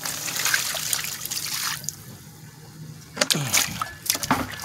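Water poured out of a plastic bucket, splashing and trickling for about two seconds, then a few knocks near the end.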